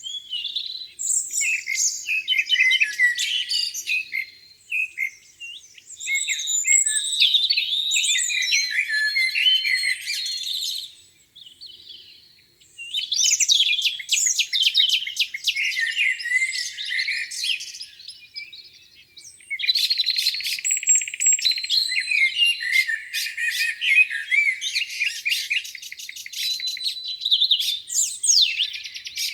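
Several songbirds singing at once in a spring dawn chorus: overlapping high chirps, whistles and rapid trills, with a brief lull about eleven seconds in.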